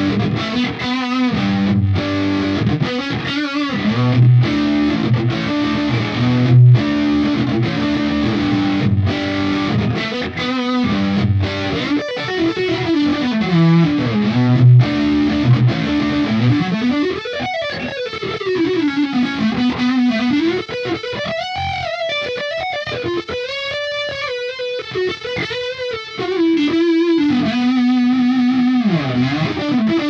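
Suhr Classic Pro electric guitar played through a Line 6 POD HD500 on a high-gain distorted tone. It starts with stop-start riffing that cuts off sharply between phrases. From about halfway in it plays a lead line of sustained notes that bend and waver in pitch.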